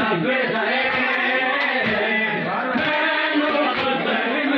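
Many voices singing a chant together, with a dull low thud every half second to a second.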